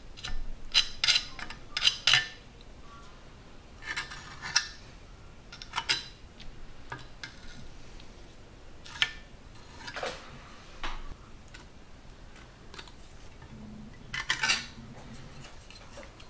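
Small perspex sheet scraping and clicking against a cast iron gutter as it spreads fibreglass-reinforced body filler over a hole. A series of short, irregular scrapes with gaps between, busiest in the first two seconds and again near the end.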